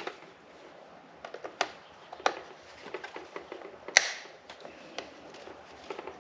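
Scattered light clicks and taps from handling a wrench set in its plastic tray, with one sharper, louder click about four seconds in.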